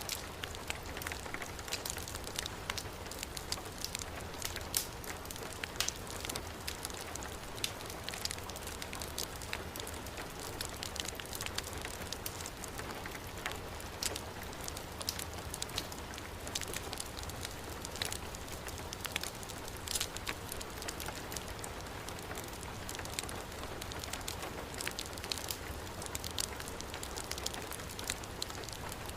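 Heavy rain falling as a steady hiss, mixed with a wood fire crackling, with frequent sharp pops at irregular moments.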